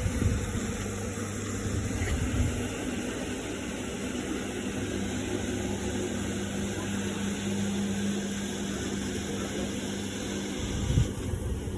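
Electric motor of a carpet-cleaning machine running steadily: a low hum over a broad hiss, with a brief bump near the end.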